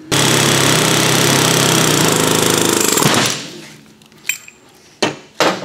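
Pneumatic air hammer hammering on a rear differential case in one continuous rapid burst of about three seconds, then stopping. A few light metal clinks follow near the end.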